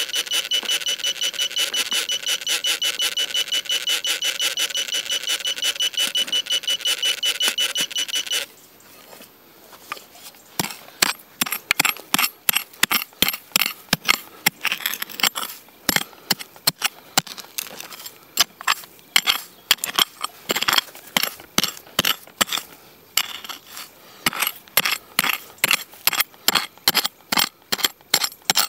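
A metal detector gives a fast, steady pulsing high beep for about eight seconds, signalling metal in the ground. It then stops, and from about ten seconds in a hand tool digs and scrapes in the soil in quick, irregular strokes.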